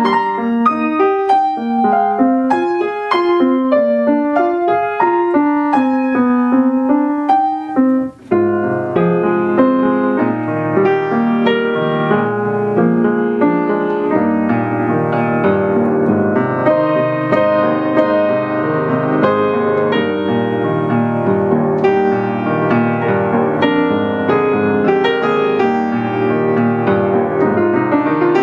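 Grand piano played solo: a clear line of separate notes for about eight seconds, a brief pause, then a fuller, denser passage with bass notes underneath.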